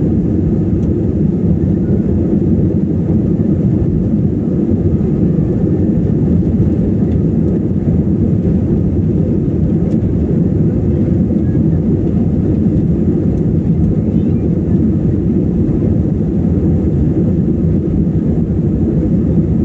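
An airplane climbing out after take-off: a steady low rumble of its engines that holds level throughout.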